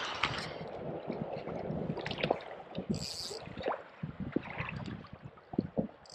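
Sea water lapping and gurgling against a kayak's hull, with scattered light knocks and a short high hiss about three seconds in.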